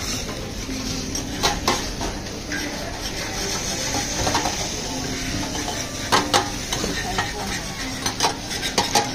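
Metal spatulas scraping and clinking on a stainless flat-top griddle as food fries and sizzles, with sharp metal clinks in pairs now and then.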